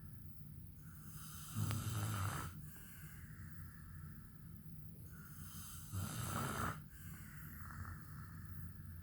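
A man snoring in his sleep: two loud, rough snores about four and a half seconds apart, with quieter breathing between them.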